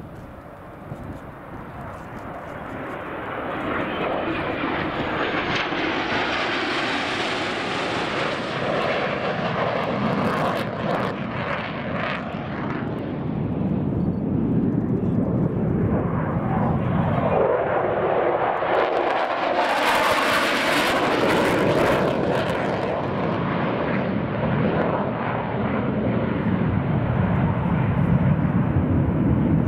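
Jet-engine roar of low-flying F-16 fighter jets. It builds over the first few seconds and then stays loud, rising and turning brighter about a quarter of the way in and again past the middle.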